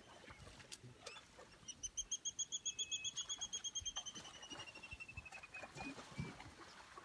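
A bird calling a fast trill of rapidly repeated notes, starting about two seconds in and slowly falling in pitch and slowing as it fades out near six seconds.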